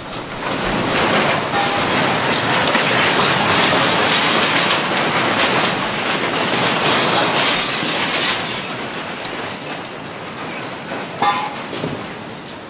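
Loud rumbling and rattling of buildings and street fittings shaking in an earthquake. It swells about half a second in and eases after about eight seconds, with a single sharp knock near the end.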